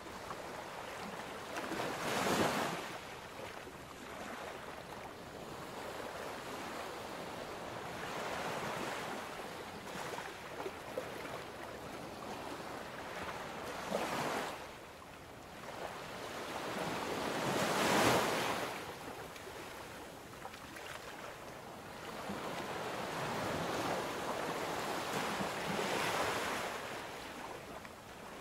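Ocean surf washing in and out, a steady rush that swells into louder waves every few seconds.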